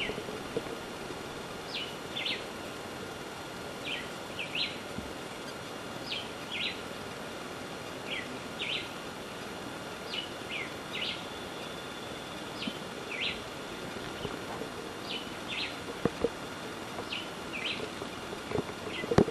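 Short, high chirping calls in pairs, about one pair every two seconds, each note sliding quickly down in pitch, over a steady faint high drone. A few soft knocks come near the start and near the end.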